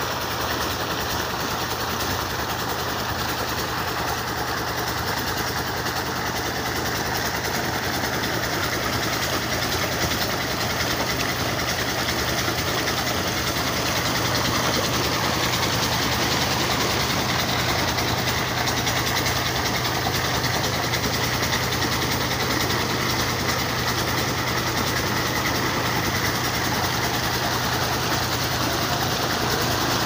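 Tubewell pump engine running steadily, with water gushing from the outlet pipe into the tank.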